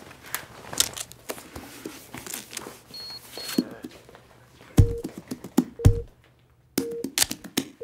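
Rustling and scattered taps of handling, with two short high beeps about three seconds in. From about five seconds in, a film-leader countdown sounds: a short beep together with a low thump about once a second.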